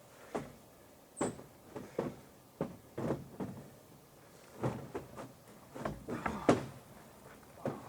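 Irregular knocks and thumps of a moose carcass being dragged and shifted on wooden loading boards into a truck bed, the loudest about six and a half seconds in.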